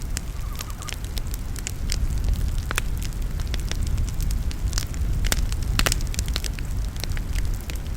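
Wood campfire crackling: irregular sharp pops and snaps from the burning wood, several a second at times, over a steady low rumble.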